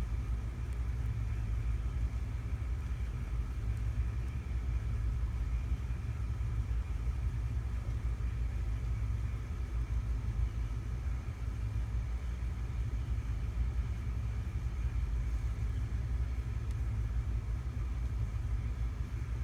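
Steady low background rumble with a faint steady hum of machinery above it.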